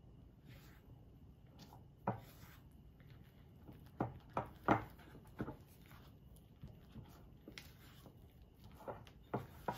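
Silicone spatula stirring flour into wet batter in a glass mixing bowl: soft scraping with scattered sharp knocks against the glass, the loudest cluster about four to five seconds in.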